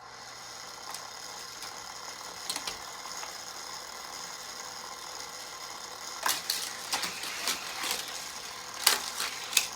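Battery-powered Hot Wheels track booster whirring steadily, its motor spinning from the start. From about six seconds in, a series of sharp plastic clacks as a die-cast toy car is launched and clatters along the plastic track.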